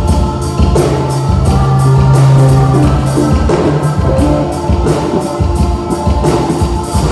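Live band playing loud through a PA during a sound check: drum kit keeping a steady beat under pitched instruments and a singing voice, with a low bass note held for a couple of seconds about a second in.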